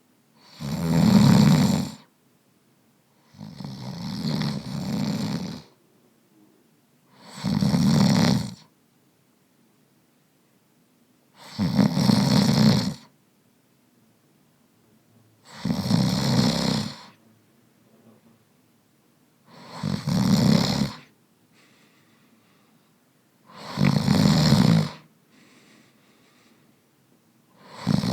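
A man snoring in sleep: a loud, rasping snore on each breath, repeating regularly about every four seconds, with quiet pauses between.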